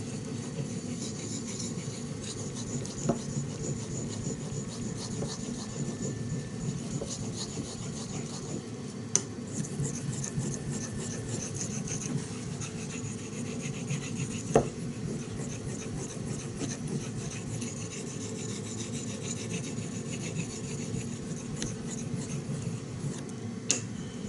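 A 3V steel knife blade being stroked back and forth on a wet natural Japanese finishing stone (Kyoto Shohonzan awase toishi): a steady rhythmic scraping, with an occasional sharp click.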